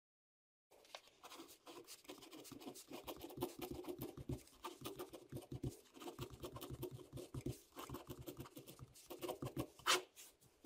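A ballpoint pen scratching on paper as words are handwritten: a faint run of short, quick strokes starting about a second in, with one louder stroke near the end.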